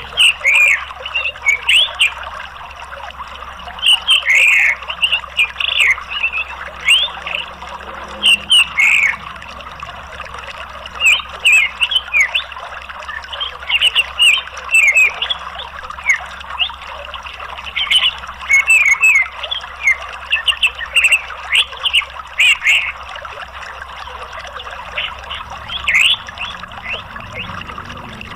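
Orange-headed thrush twittering in quick runs of short, high chirps, over a steady rush of flowing water.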